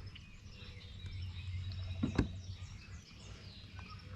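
Songbirds chirping, many short falling calls, over a low steady rumble of outdoor background noise. One sharp knock sounds just after two seconds in.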